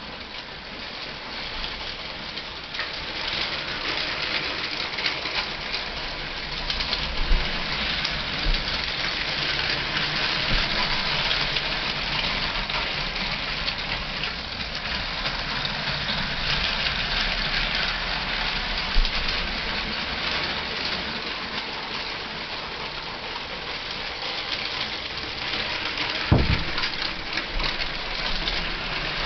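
Two Lego toy trains running on plastic track: steady whirring of their small electric motors and rattling of the wheels over the track, with a few short knocks.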